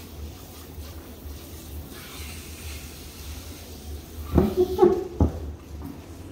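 Low steady hum, with a short voice-like sound and a couple of sharp knocks about four and a half to five seconds in.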